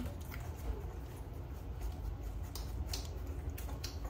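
A few soft clicks and rustles as hands handle a small puppy, over a low steady hum.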